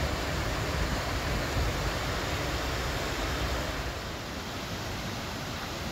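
Steady rush of river water pouring over a small weir, with a low rumble underneath that eases about four seconds in.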